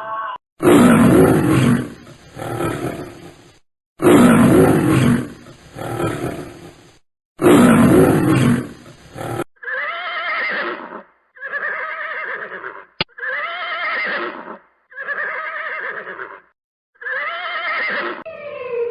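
Animal calls: one loud, rough call about three seconds long played three times over, followed by five shorter, pitched calls about a second apart.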